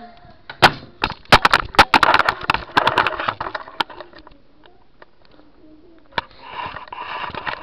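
Close handling noise: a dense run of clicks and crackles for about three seconds as hands grip and shift a metal rod right at the microphone, then a breathy hiss near the end.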